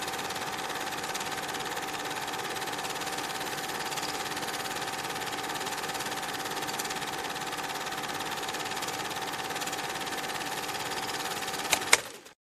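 Cine film projector running with a steady mechanical whirr and a constant hum. Near the end come two sharp clicks, and then the sound cuts off suddenly.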